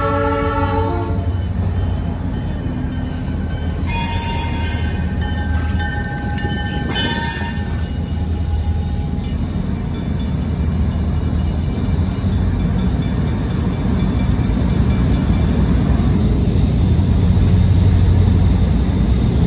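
Diesel-electric locomotive backing over a grade crossing: its multi-note air horn sounds and cuts off about a second in, two brief high-pitched tones come around four and seven seconds in, and the engine's low rumble runs on, swelling near the end.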